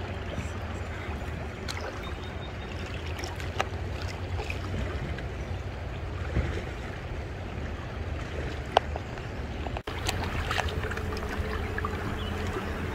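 River water moving around an inflatable raft, with steady wind rumble on the microphone and a few small sharp knocks, the loudest about nine seconds in. The sound drops out for an instant just before ten seconds in.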